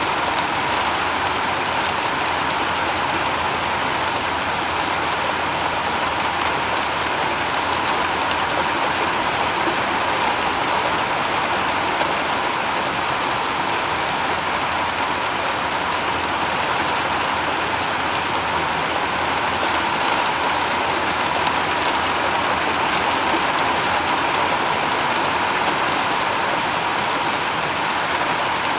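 Steady rain falling on a shingle roof, an even hiss of countless drops without let-up.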